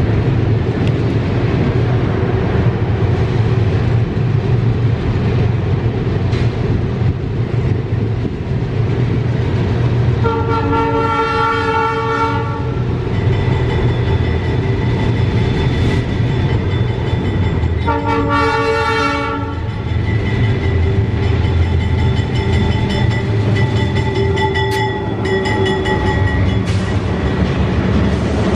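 GE BB36-7 diesel locomotives hauling a loaded limestone train, their engines running with a steady low rumble as the train comes up and passes close. The horn sounds twice: a chord blast of about two and a half seconds, about ten seconds in, and a shorter one about eighteen seconds in.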